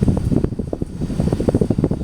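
CEI GE Vent ceiling fan running: a low rumble with rapid, uneven pulsing.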